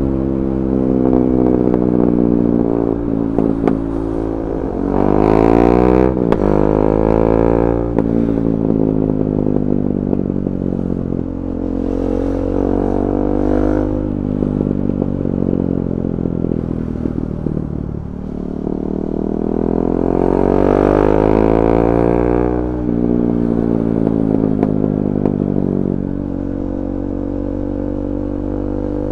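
KTM 390 Duke's single-cylinder engine through a de-catted Akrapovic exhaust, its revs rising and falling several times. Popping and crackling from the exhaust come mostly as the revs drop.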